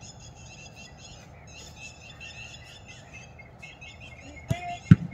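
A flock of birds chirping steadily in rapid, repeated calls. Near the end come two sharp thuds a split second apart, the second the loudest sound, from a football being kicked on the turf.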